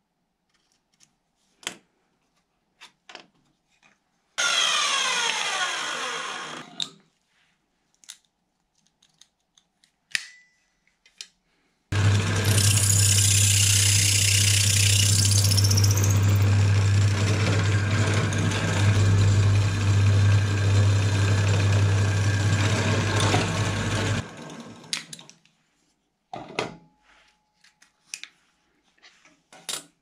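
Bench drill press running steadily with a deep motor hum for about twelve seconds, its bit drilling a wooden knife-handle scale held in locking pliers, with a harsher high hiss over the first few seconds of the cut; then it is switched off and runs down. Before that comes a shorter machine sound falling in pitch, and scattered clicks and knocks of handling.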